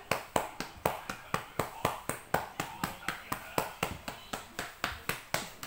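A hand patting a child's back quickly and firmly, in an even run of about four sharp pats a second. This is chest percussion to loosen phlegm from a wet cough.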